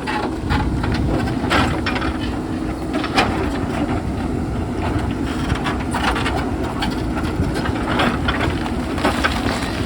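JCB backhoe loader's diesel engine running steadily under load, with repeated sharp knocks and scrapes of stone against the bucket as rock is dug out.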